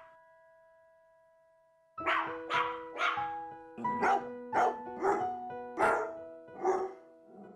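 Piano music with a dog barking over it: for the first two seconds held piano notes fade, then about eight short barks come in quick succession over sustained piano chords.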